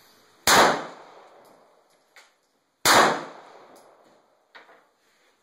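Two 9mm pistol shots from a Heckler & Koch P7 PSP firing 115-grain Remington UMC rounds, about two and a half seconds apart, each with a short echoing tail. There are faint clicks between the shots.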